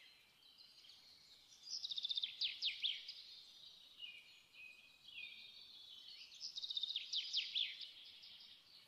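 A songbird singing two phrases a few seconds apart, each a rapid high trill followed by quick down-slurred notes, with softer twittering between them.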